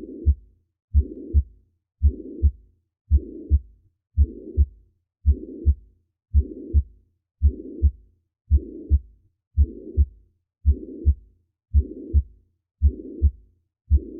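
Recorded human heartbeat with a murmur, a little under one beat a second: each beat a pair of low thumps (the first and second heart sounds) with a soft rushing noise running between and after them.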